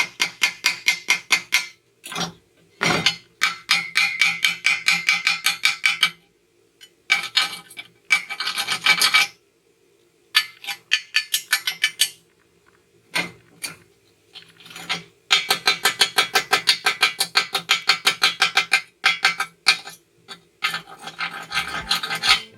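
Rapid back-and-forth scraping strokes over a freshly stick-welded steel joint, about eight to ten strokes a second, in several bursts with short pauses between them: cleaning the slag off the weld.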